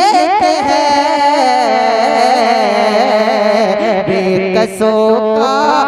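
A man singing a naat into a microphone, drawing out long, wavering held notes with no clear words between lines of the poem.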